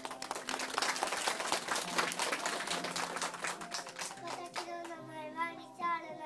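A group clapping hands, dense and irregular, over a steady music accompaniment; the clapping stops after about four and a half seconds and a child's voice starts singing.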